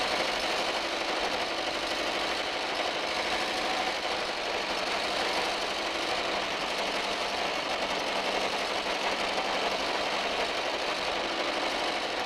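Carburettor petrol engine with prechamber-torch ignition running steadily on a test stand: an even, fast mechanical clatter that fades away near the end.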